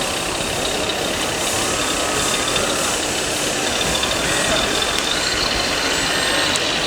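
Radio-controlled scale trucks' electronic engine sound modules running, with the steady chatter of a busy exhibition hall.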